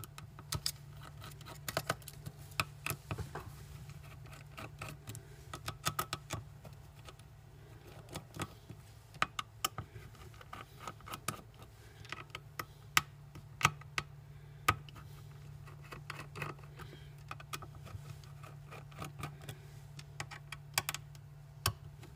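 Paper label being peeled by hand off a hard drive's metal top cover: scattered small crinkles, scratches and clicks throughout, over a low steady hum.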